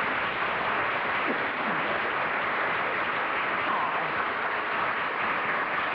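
Studio audience applauding steadily, a dense even clatter of clapping.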